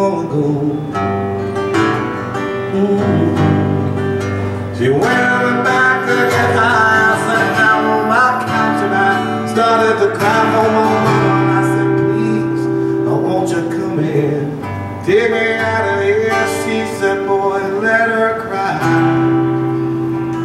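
Live acoustic music: an acoustic guitar strummed in steady chords, with a fiddle playing along in long, wavering melodic lines.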